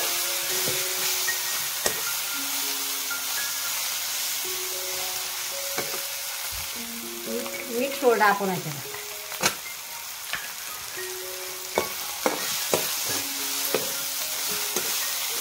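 Onion-tomato masala sizzling in hot oil in a kadhai while a long flat spatula stirs and scrapes it, its strokes against the pan giving sharp scrapes and clinks over the steady sizzle.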